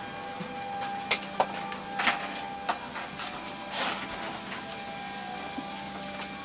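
Steady hum of a Boeing 787 cabin on the ground, holding a few even tones, with five or six sharp knocks and clacks in the first few seconds as passengers handle bags and overhead bins.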